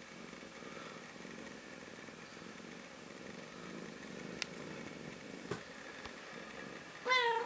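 Mother cat purring steadily, with a few faint clicks, then a short cat meow near the end.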